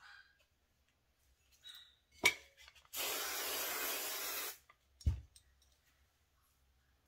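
Aerosol can of hairspray sprayed in one steady hiss lasting about a second and a half, with a sharp click just before it and a low thump about half a second after it stops.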